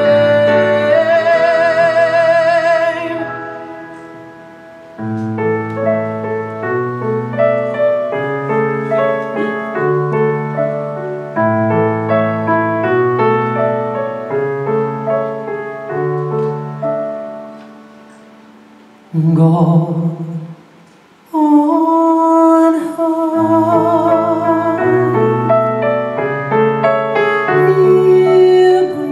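Live male voice holding a long vibrato note at the end of a sung phrase, then solo piano playing a slow interlude. After a short lull, the singing comes back in with held vibrato notes over the piano.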